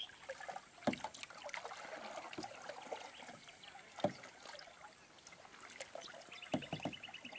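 Canoe paddles working the water in repeated draw strokes beside the hulls, with soft splashing and trickling. A couple of sharp knocks stand out, about a second in and about four seconds in.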